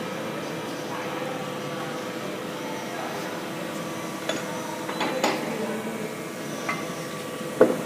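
A welding machine running with a steady hum, with a few sharp mechanical clicks and knocks in the second half, the loudest near the end.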